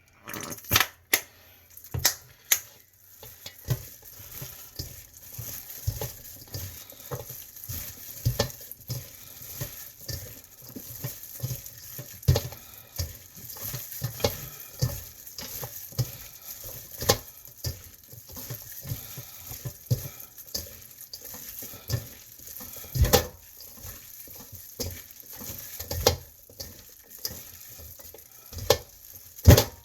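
Blanched swordtip squid and sliced vegetables being tossed by hand in chojang (red pepper vinegar sauce) in a bowl: irregular wet squelching and sticky clicks, with a few louder knocks.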